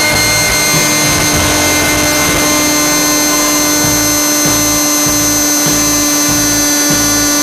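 Electric motor and propeller of an FPV RC plane running at high throttle, drawing about 50 amps in a climb: a loud, steady whine that holds one pitch.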